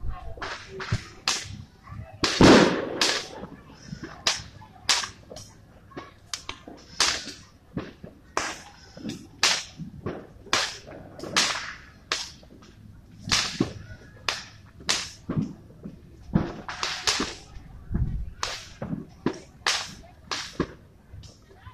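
Fireworks going off: a continuous run of sharp bangs and cracks at uneven intervals, roughly one or two a second, the loudest about two and a half seconds in.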